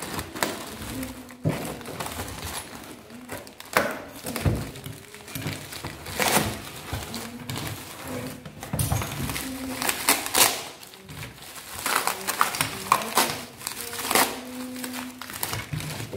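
Plastic bags and bubble wrap crinkling and rustling as shower fittings are unwrapped by hand, with a cardboard box being handled; irregular crackles broken by a few sharper knocks and snaps.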